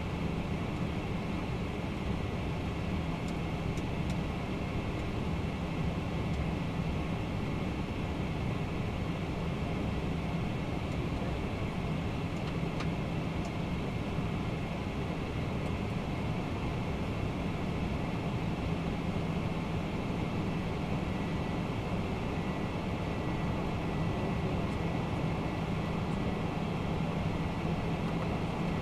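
Steady flight-deck noise of a Boeing 767-300ER in its climb after takeoff: an even rush of air with a constant low engine hum and a thin, steady high tone, unchanging throughout.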